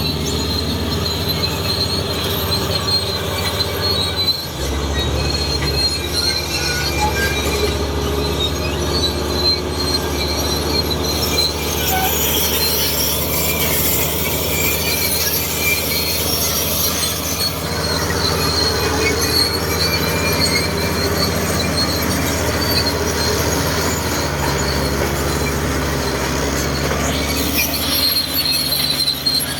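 Old crawler bulldozer pushing limestone: its diesel engine runs with a steady low drone, and high-pitched squealing comes from the steel tracks. The engine note shifts about four seconds in.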